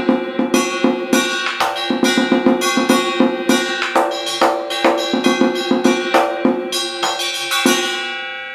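Vietnamese trống chiến war drum beaten with two wooden sticks in a quick, uneven run of strokes, several a second, with a metallic ringing over the hits. The last stroke near the end is left to ring out.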